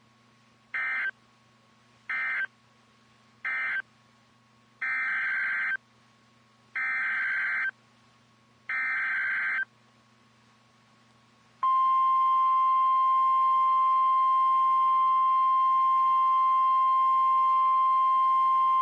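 Emergency Alert System signalling on a NOAA Weather Radio broadcast. First come three short end-of-message data bursts that close the previous tornado warning. Then come three longer SAME header data bursts that open the next one, and about two-thirds of the way through, the steady single-pitch Weather Radio warning alarm tone starts and holds.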